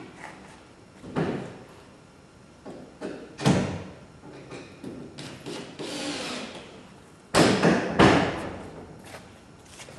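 Marine-plywood cabin side knocking and scraping against a wooden boat's cabin as it is offered up for a trial fit. There are scattered knocks about a second in and at three and a half seconds, a sliding scrape around six seconds, and the two loudest thumps a little after seven seconds and at eight.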